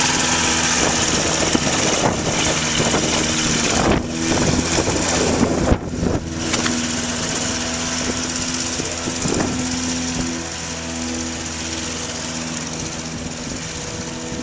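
Kitfox light aircraft's engine and propeller running at taxi power, a steady drone that grows fainter over the last few seconds as the plane taxis away.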